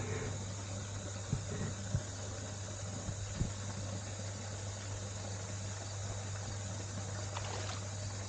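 Steady outdoor background hiss with a low hum underneath, broken by a few soft knocks.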